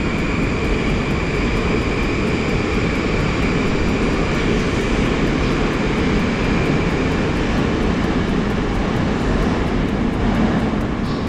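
Metro train running at speed, heard from inside the carriage: a steady, loud rumble of wheels and running gear with a thin, high whine held above it.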